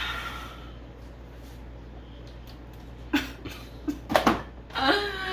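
Someone swigging from a metal cocktail shaker: a few gulps and sharp clicks about three to four seconds in, then a short vocal sound near the end.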